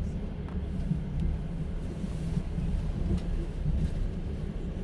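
Steady low rumble of a moving passenger train, heard inside an open-plan sleeper carriage, with a few faint knocks.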